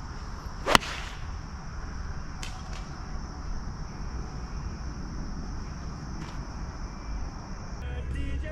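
A golf club striking the ball on a tee shot: one sharp crack about a second in. Insects chirr steadily throughout, stopping near the end.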